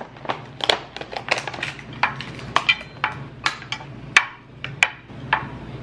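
Small mushroom figurines being handled out of a clear plastic package and set down on a wooden Lazy Susan tray: a string of irregular light clicks and knocks with plastic crackling.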